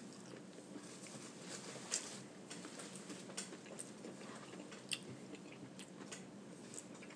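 Faint chewing and mouth sounds of a person eating, with a few short sharp clicks at about two, three and a half and five seconds in.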